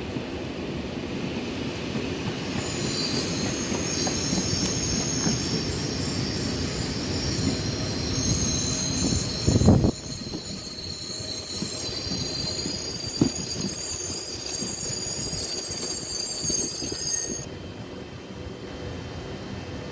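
Z 24500 double-deck electric train rolling slowly along the platform, with a steady rumble and high, sustained wheel squeal that stops suddenly about three seconds before the end. A loud thump comes about halfway through.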